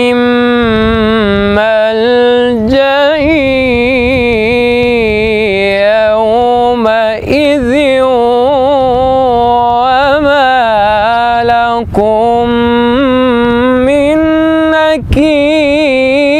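A man's solo Quran recitation in the tajweed style, sung in maqam Kurd. One long melismatic line is stretched over a few syllables, its pitch wavering and ornamented in a high register. The line breaks briefly three or four times for breath.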